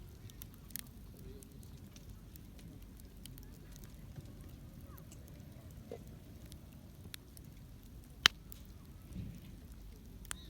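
Wood campfire crackling, with scattered small pops and one sharp, loud pop about eight seconds in.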